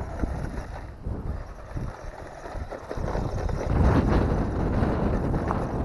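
A GPTOYS S926 1:12 scale 4WD RC truck driving over rough dirt, its electric motor and tyres running, with wind on the microphone. The sound gets louder about halfway through.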